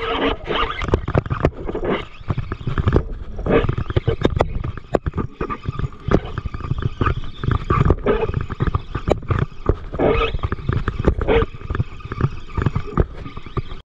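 Wind buffeting the camera's microphone in heavy, irregular gusts, a loud rumbling noise that cuts off suddenly near the end.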